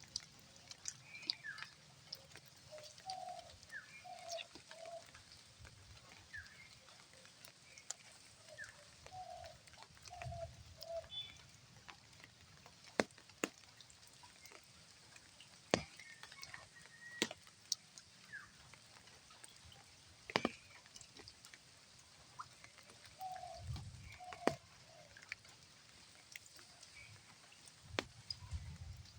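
Birds calling: clusters of three short low notes recurring three times, among scattered higher chirps, with a few sharp clicks and dull low thumps.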